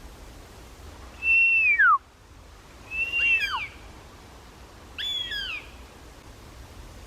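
Whistled hawk calls exchanged between a hawk and a person loudly mimicking it: three descending calls about two seconds apart, each a held high note that drops sharply at the end. The first is the loudest and cuts off abruptly.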